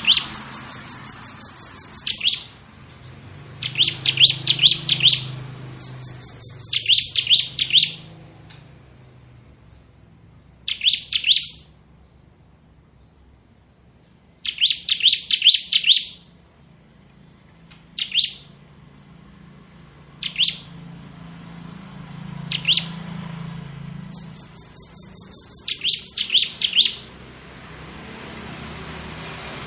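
Bar-winged prinia (ciblek) singing its 'ngebren' song: rapid runs of sharp, high-pitched notes, some lasting about two seconds and others brief, repeated with short pauses between them.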